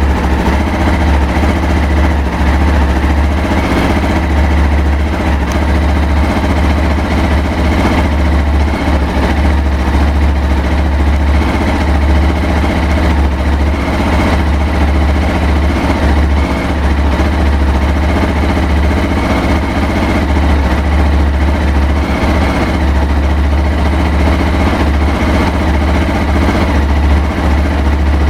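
Honda XR250 Baja's air-cooled single-cylinder four-stroke engine idling, its low note dipping briefly a few times. The owner complains of an uneven idle with sneezing and suspects an air leak.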